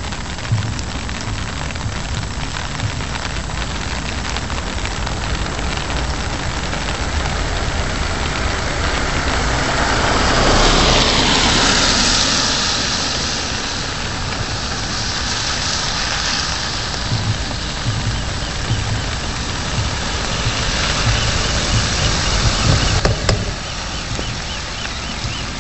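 Steady rain with cars passing on the wet road, their tyres hissing on the wet asphalt. The loudest pass-by swells and fades about ten to thirteen seconds in, and further hissing passes come a few seconds later and near the end.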